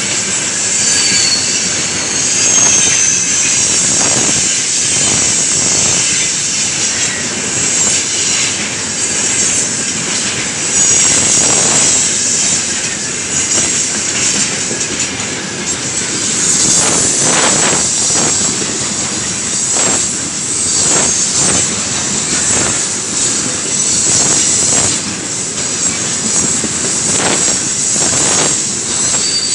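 Tank cars of a heavy loaded freight train rolling past close by: loud steel-wheel rumble with a steady run of clacks over the rail joints, and a high wheel squeal coming and going.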